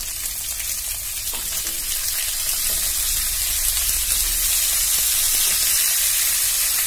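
Hot gingelly (sesame) oil sizzling steadily in a nonstick kadai as diced raw potatoes are dropped in on top of frying drumstick pieces, garlic and curry leaves, with a few soft knocks of the pieces landing. The sizzle grows a little louder as it goes on.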